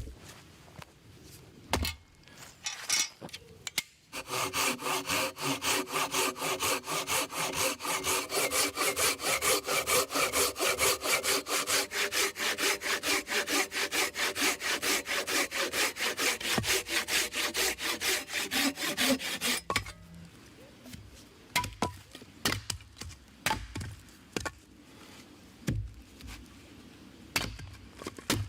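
Hand saw cutting through wood in quick, even back-and-forth strokes for about sixteen seconds, then stopping abruptly. Scattered light knocks and clicks come before and after the sawing.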